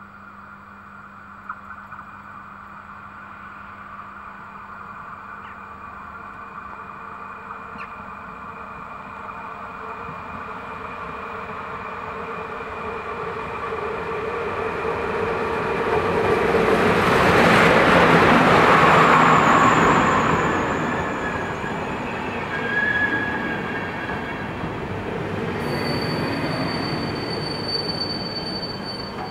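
PKP Intercity passenger train hauled by an EP07 electric locomotive arriving at a station. It grows louder as it approaches and is loudest as the locomotive passes, then the coaches roll by as it slows. High wheel and brake squeals come in near the end.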